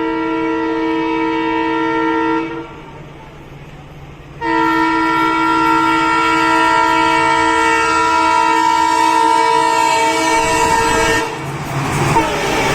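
Horn of a WDP-4D diesel locomotive sounding a chord of several steady tones: a blast of about two and a half seconds, a short pause, then a long blast of about seven seconds. Near the end the horn stops and the noise of the train passing at speed takes over.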